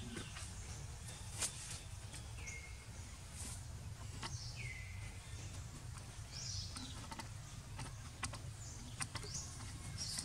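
Outdoor ambience: a steady low rumble with birds calling a few times, short chirps and sweeping calls, and scattered light clicks.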